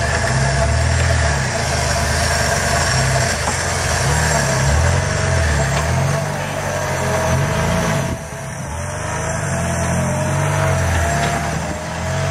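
Off-road 4x4's engine revving up and down over and over while working to get out of a muddy ditch, with a steady whine riding over it. The engine sound drops briefly about eight seconds in, then picks up again.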